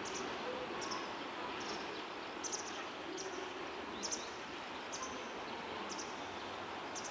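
Steady outdoor background noise with a short high chirp repeating at an even pace, roughly once every 0.8 seconds.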